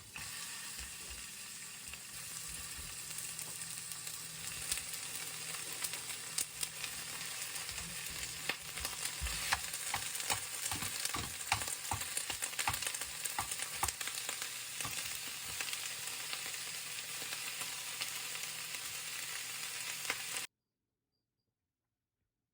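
Food frying in a pan: a steady sizzle with frequent sharp crackles and pops of spitting oil, cutting off suddenly about twenty seconds in.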